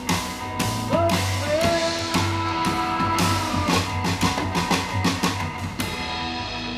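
Live rock and roll trio playing an instrumental passage: drum kit, upright bass and electric guitar, with bent guitar notes sliding up. The drumming stops about six seconds in and a chord rings on.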